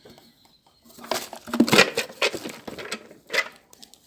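An electrical junction box being handled: irregular clicks, rattles and rustles, starting about a second in.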